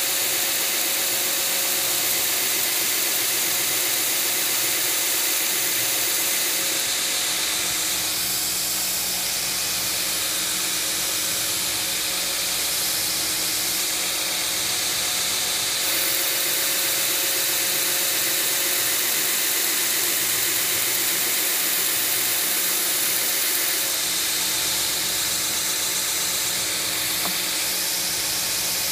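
A 2x72 belt grinder runs steadily with its ceramic belt over a 4-inch contact wheel. A steel straight razor blank is ground against it, setting the hollow grind, and gives a hissing grind for the first several seconds and again midway. Between those passes the belt runs on its own.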